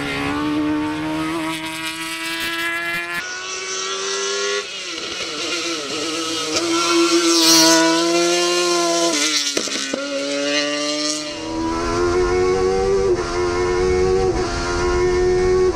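Speedcar GTR race car engine revving hard at high rpm, its pitch climbing in each gear and dropping at each upshift. The sound changes abruptly several times as roadside and onboard recordings are cut together.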